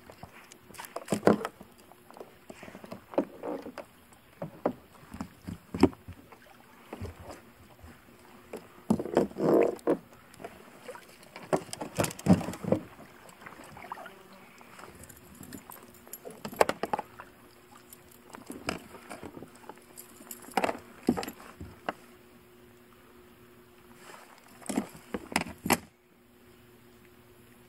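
Irregular knocks, taps and rattles of gear being handled against a plastic kayak hull, some sharp and loud, over a faint steady hum. The knocking stops abruptly near the end.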